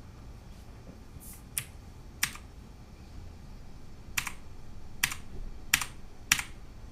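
Keys on a Drevo 84-key mechanical keyboard with clicky Outemu Blue switches being pressed one at a time: about six sharp single clicks, two together, then a pause of about two seconds, then four more in steady succession.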